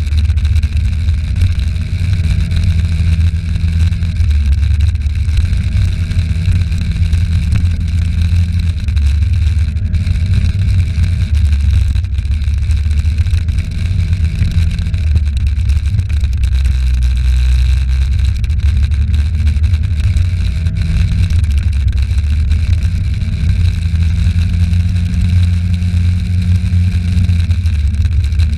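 A scooter engine running while riding along a street. Its pitch climbs slowly as it pulls away and falls back when it eases off, several times, over a loud low rumble of wind on the microphone.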